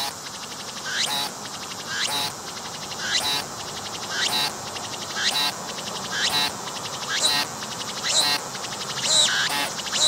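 A cicada singing close to the microphone: a loud phrase about once a second, each rising sharply in pitch, with a pulsing buzz between phrases.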